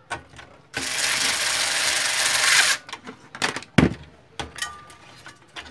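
Hands-on work inside a laser printer being reassembled: a loud, dense mechanical whirring noise lasting about two seconds, then a series of sharp clicks and knocks as plastic parts and wiring are handled and fitted.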